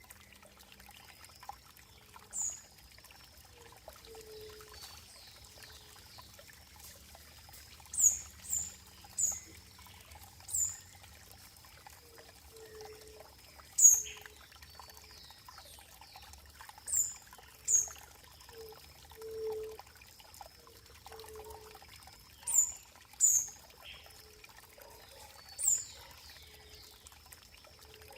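Running water trickling and pouring, with short, high, sharp chirps that fall slightly in pitch, recurring singly or in pairs every second or few, and fainter low blips between them.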